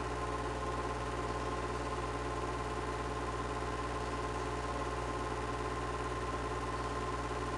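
Super 8 film projector running: a steady motor and fan whir with a constant hum, unchanging throughout.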